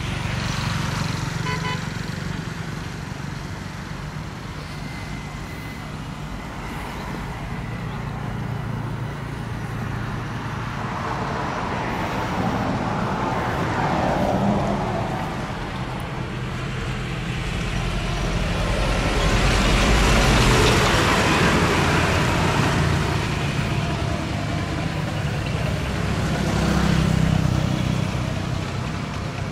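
Road traffic with a low, steady engine hum underneath, as vehicles pass and swell louder about halfway through, again a little later, and once more near the end.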